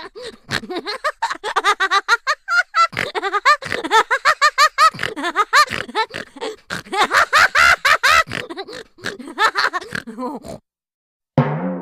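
Cartoon voice sound effect: a rapid run of short, high-pitched, sped-up vocal syllables lasting about ten seconds, then stopping. Near the end a single twanging note rings out and fades.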